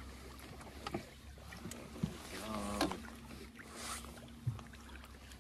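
Boat's outboard motor running steadily at trolling speed, a low hum with a faint steady tone above it, broken by a few light knocks.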